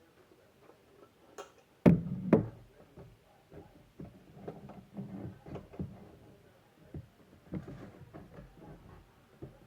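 Two sharp knocks about two seconds in, then scattered lighter clicks and taps, like objects being handled.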